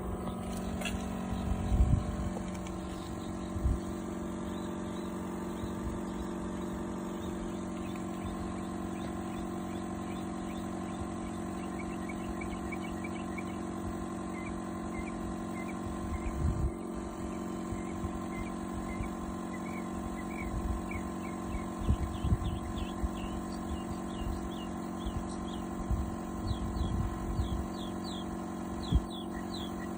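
Outdoor air-conditioning unit running with a steady hum, broken by irregular low thumps; the pulsating thump is the sign of refrigerant being restricted by a bad valve.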